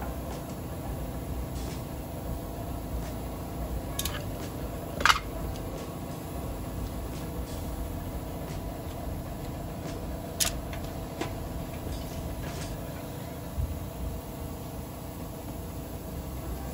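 A steady background drone with a few sharp clicks and knocks; the loudest click comes about five seconds in.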